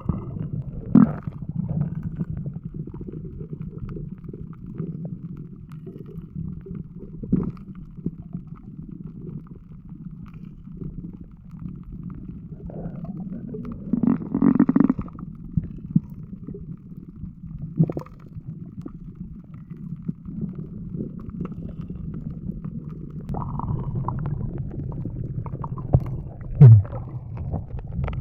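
Muffled water sloshing and gurgling with a steady low rumble, broken by a few short knocks.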